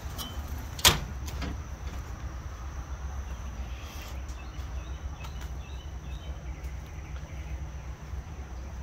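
Outdoor background of a steady low rumble and a steady high insect drone. One sharp knock about a second in, a hand striking the bus's fluted metal side panel.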